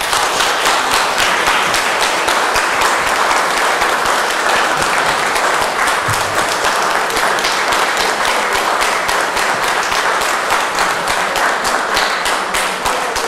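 Audience applauding: many hands clapping together, breaking out suddenly and holding steady.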